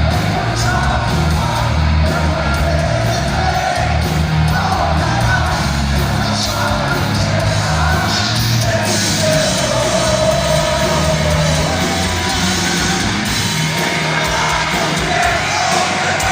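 Live heavy metal band playing in a large hall, with distorted electric guitars, bass and drums, and a voice singing or yelling over it.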